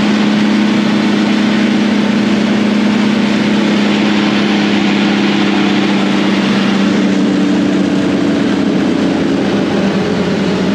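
Self-propelled forage harvester running under load while chopping standing corn and blowing silage into a truck alongside: a loud, steady machine drone with a constant low hum under a dense hiss. About seven seconds in, part of the hum drops slightly in pitch.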